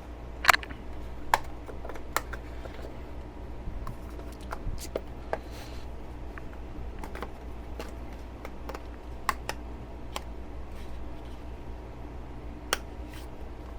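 Scattered light clicks and taps of product boxes and packaging being handled and set down on a desk, the sharpest about half a second in and near the end, over a steady low room hum.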